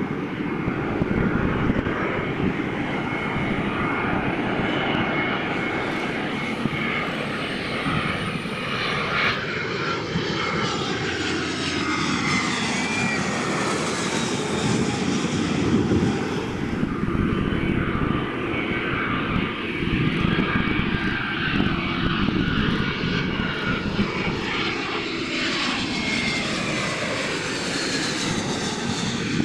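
Airliner engines running loud and steady as a plane passes close by, with a faint whine that glides down through the middle and rises again near the end.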